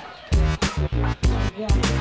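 Background electronic dance music with heavy bass hits and a synth melody.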